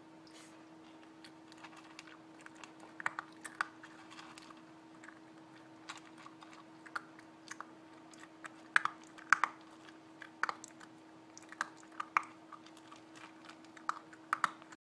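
A puppy eating dry kibble from a plastic bowl: irregular crunching and clicking of kibble and teeth, sparse at first, then louder and more frequent partway through. A faint steady hum runs underneath.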